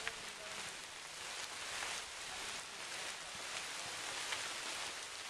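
Steady hiss of rain falling on the forest leaves.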